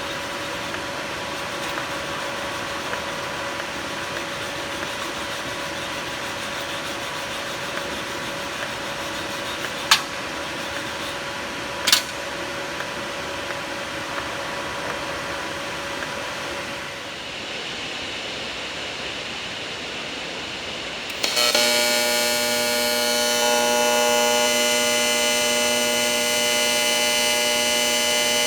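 TIG welding arc from a Hitbox TIG200PACDC welder, a steady hiss with two sharp clicks partway through. About three-quarters of the way in it changes to a louder, steady buzz made of many tones.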